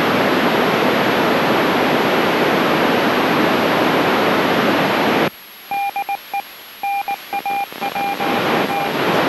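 Amateur radio receiver hissing with loud open-squelch static, which cuts off abruptly about five seconds in. A string of short and long beeps at one steady pitch follows, keyed on and off like Morse code.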